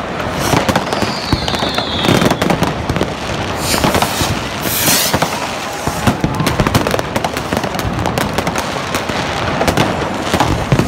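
Amateur fireworks going off all around: a dense, continuous run of bangs and crackling from rockets and firecrackers. A falling whistle comes about a second in, and a loud hiss about five seconds in.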